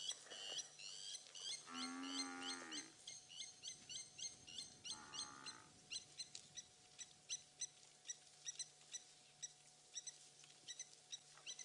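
Blacksmith lapwing giving a rapid series of sharp, metallic 'tink' alarm calls, two or three a second, thinning out and fading near the end; the call of a bird defending its nest. Twice, about two and five seconds in, a brief lower drawn-out sound cuts across the calls.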